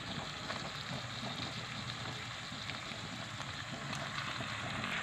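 Raw chicken pieces sizzling in hot oil with fried shallots in a nonstick kadai: a steady frying hiss, growing a little louder near the end.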